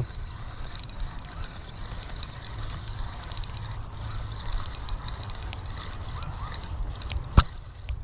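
Spinning reel being cranked under load as a hooked turtle is reeled in, with faint clicking from the turning reel and a low rumble. A single sharp click stands out about seven seconds in.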